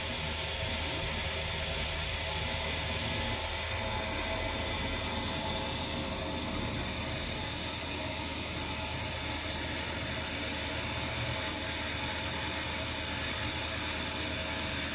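A 5-axis CNC milling machine running a light chamfering pass in an Inconel block: a steady spindle whine over a constant hiss and low hum.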